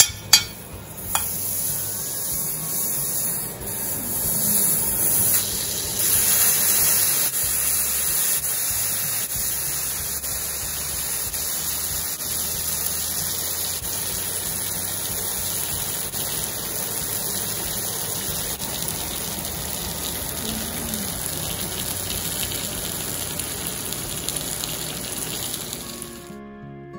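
Hot cast-iron sizzling plate sizzling hard as it is greased and the saucy shrimp gambas go onto it, with a few sharp knocks at the start. The steady sizzle cuts off abruptly near the end.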